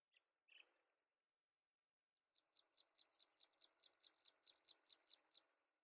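Faint small-bird chirping: two short chirps, then about two seconds later a quick, even run of about sixteen high chirps, roughly five a second.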